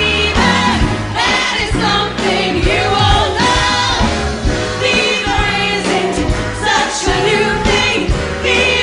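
Four-woman vocal group singing together into microphones over a pop backing track with a repeating bass line.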